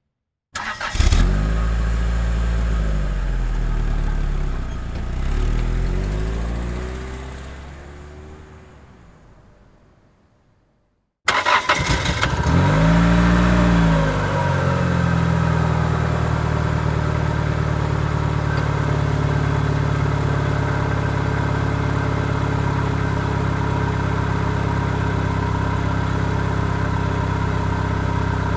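A car engine starts twice. The first time it catches, is revved up and down a few times and dies away over several seconds; the second time it catches, revs once and settles into a steady idle.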